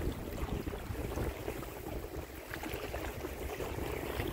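Lake waves surging through a narrow rocky channel along the shore, a steady churning rush of water with no separate splashes.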